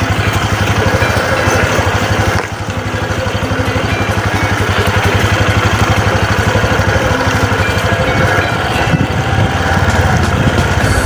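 Trail motorcycle engine running at low revs with a steady, fast pulsing beat. It eases off for a moment about two and a half seconds in, then picks up again.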